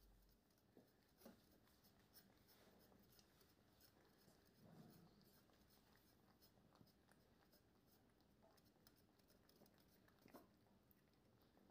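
Very faint sounds of a flame-point Siamese cat eating from a bowl: soft chewing and small irregular clicks.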